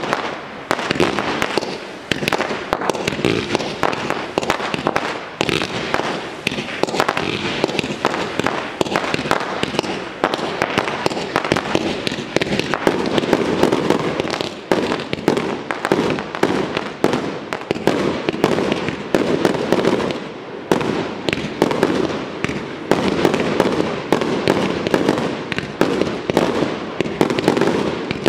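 Fireworks display: fanned volleys of comets and aerial bursts going off in a continuous, rapid barrage of bangs and pops.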